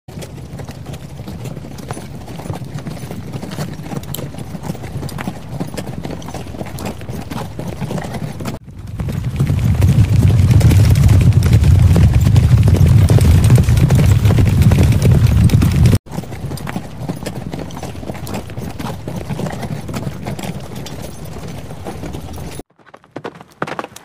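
Horses' hooves clip-clopping on dirt and sand as horses trot and gallop. About a third of the way in, the hoofbeats turn much louder and deeper for several seconds, a rumble of a group galloping, then drop back to lighter hoofbeats.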